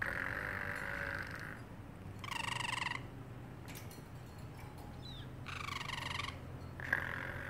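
Parrotlet calling in a series of vocal sounds, with meow-like mimicry of a cat. There are two short buzzy calls, one about two and a half seconds in and one about six seconds in, between a held steady note at the start and another near the end.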